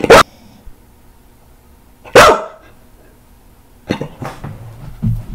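Senior staffy-mix dog barking loudly: two sharp single barks about two seconds apart, followed by fainter, rougher noises near the end.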